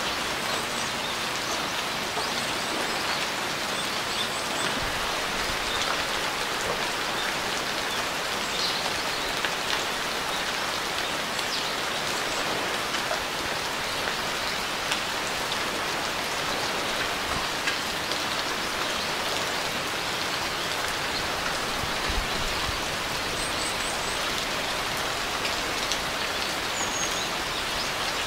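Steady rain falling, an even hiss of many drops with now and then a slightly louder drop.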